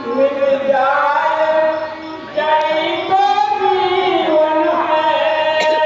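A man singing stage dialogue as a drawn-out melodic chant through a microphone and loudspeaker, with long held notes that glide up and down and a short pause about two seconds in, over steady held accompanying notes.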